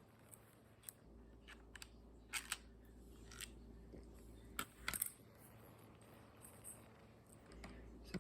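Sharp clicks at irregular intervals, with close double clicks about two and a half and five seconds in, from a 3D-printed plastic pistol's parts being handled or worked. A faint low hum runs underneath for a few seconds.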